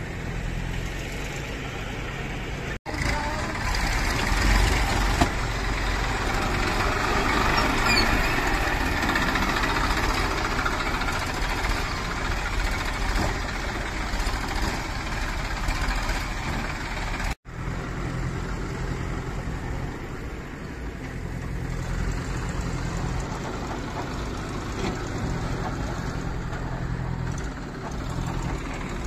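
Diesel tractor engines running continuously, louder through the middle stretch while a tractor hauls a loaded trolley through loose sand. The sound drops out for an instant twice, about 3 and 17 seconds in.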